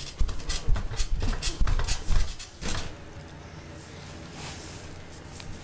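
A dog moving right up against the camera: rubbing, bumps and clicks for about the first three seconds, then quieter.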